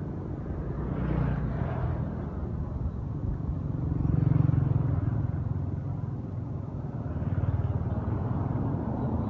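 Engines of passing road vehicles, a low hum that swells and fades several times, loudest about four seconds in.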